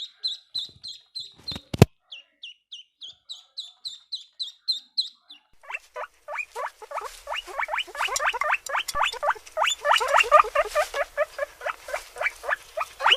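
Animal calls in two runs. First comes a string of short, high chirps about three a second, with one sharp click near two seconds in. From about six seconds in comes a faster, denser run of lower, falling squeaky calls.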